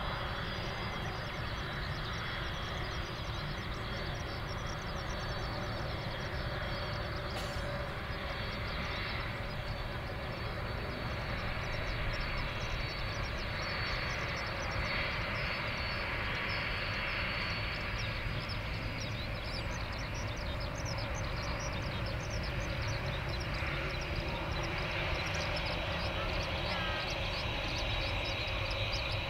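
Boeing 767-300 jet engines at taxi power: a steady rumble with a thin, high, even whine over it.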